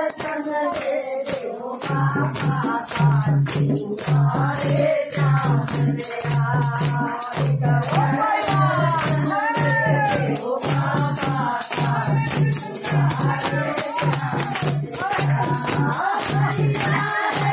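Group singing of a Hindi devotional bhajan to Khatu Shyam, backed by hand clapping and the jingling rattle of wooden hand clappers (kartal). A steady low drum beat, about two strokes a second, comes in about two seconds in.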